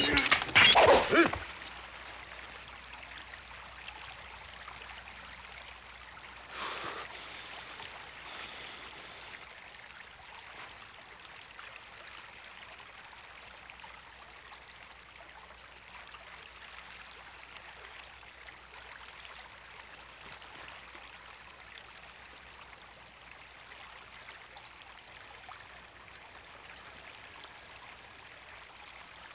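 Steady hiss of a shallow stream flowing over stones, with a loud, sudden burst in the first second or so and a faint short sound about seven seconds in.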